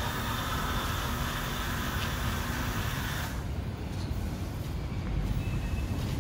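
Steam cleaner's nozzle hissing steadily as it jets a stone surface, cutting off abruptly about three seconds in and leaving only a low rumble.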